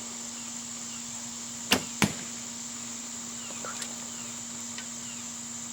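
A Woodland Hunter traditional bow being shot: a sharp crack as the string is released, and a second crack about a third of a second later as the arrow strikes the target, over a steady drone of crickets.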